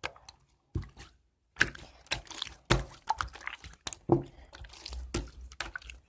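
Slime being handled and squished in a plastic container, with irregular soft clicks and squelches.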